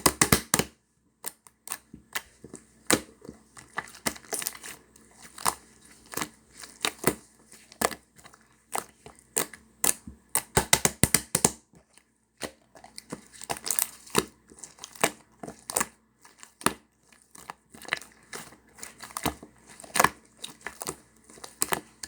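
Slime being squished, pressed and stretched by hand, giving irregular clusters of sharp sticky pops and crackling clicks with short pauses between.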